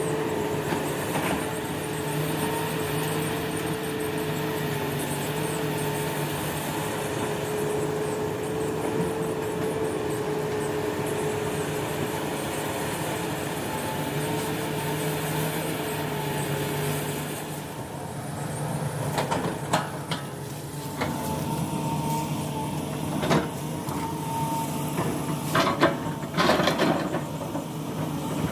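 Hitachi Zaxis hydraulic excavator's diesel engine running steadily under work load. It dips briefly about two thirds of the way in, then several sharp knocks follow near the end.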